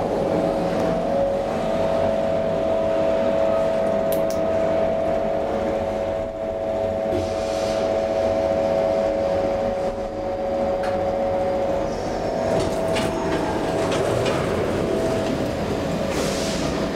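Thyssen inclined elevator car travelling downward: a steady rumble with a held whine that fades out about twelve seconds in, followed by a few clunks near the end.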